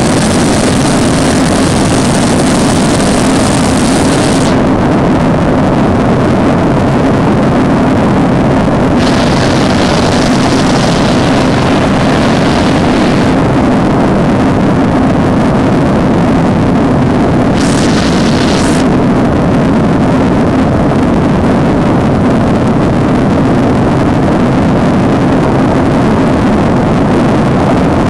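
Steady, loud drone of a PZL M28 Bryza's twin turboprop engines and propellers, heard from inside the cabin in flight, with a constant low hum under it. The higher hiss drops away about four seconds in and comes back for short spells.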